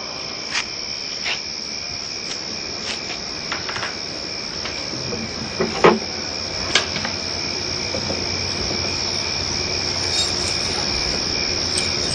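Night ambience of crickets trilling steadily and high, with a few short clicks and knocks from objects being handled; the loudest knock comes about six seconds in.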